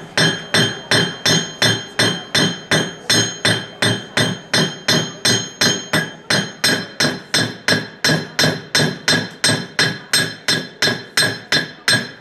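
A hand hammer beats on a piece of metal held on a small anvil stake, about three even blows a second. Each blow rings with a bright metallic clang, and the hammering stops near the end.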